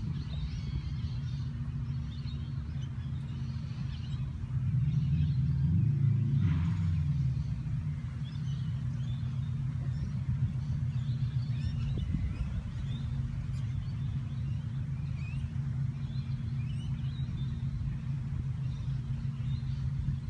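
Steady low rumble of road traffic, swelling as a vehicle passes about five to seven seconds in. Birds chirp in short calls throughout.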